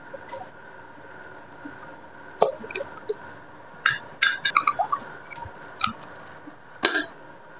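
Light clicks and taps of small hard objects being handled, with a quick run of them about four seconds in and another sharp click near the end, over a faint steady hum.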